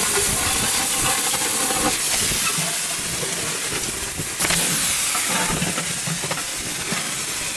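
Steady, loud hissing noise from cutting through the steel shell of a large compressor, rising abruptly about four seconds in.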